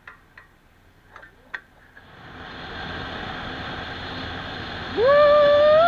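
A few faint clicks at a petrol pump, then, after a cut, the steady rush of wind and engine noise from a Bajaj Pulsar 220F being ridden. About five seconds in, a loud, sustained high-pitched call starts with a quick upward slide and holds.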